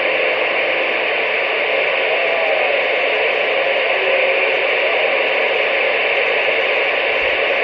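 CB radio receiver hissing with steady static on an open channel, cut off above and below as by a radio's speaker. Faint wavering tones drift underneath a few seconds in.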